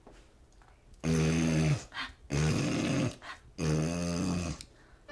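A person imitating a dog's reverse sneeze: three long, pitched, honking gasps, each about a second long, starting about a second in.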